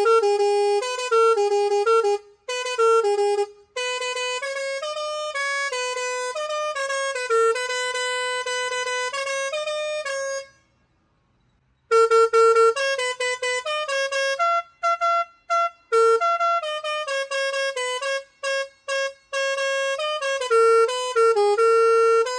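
A tractor's compressor-fed musical pressure horn set playing a tune as a single line of stepped, trumpet-like notes. It stops for about a second and a half near the middle, then starts up again.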